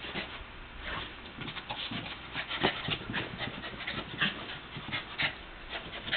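A Lhasa Apso puppy at play, making a run of short, irregular noisy sounds, with a few louder ones about two and a half, four and five seconds in.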